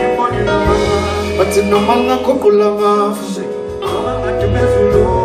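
Live band playing: male voices singing over electric guitar, bass guitar and drums.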